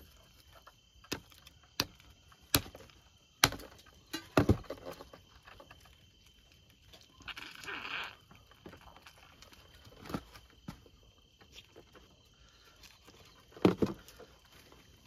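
Scattered sharp knocks and clicks at irregular intervals, about ten in all, with a short hiss about seven seconds in.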